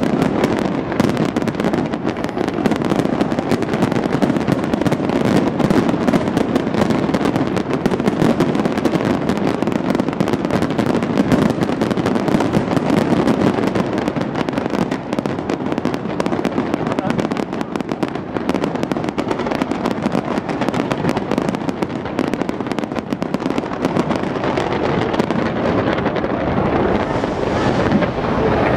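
A fireworks display going off in a dense, continuous barrage of bangs and crackle, with no break.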